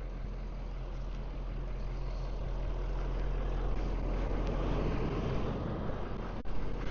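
A vehicle driving: a steady low engine hum under road noise, building slightly, with a brief dropout near the end.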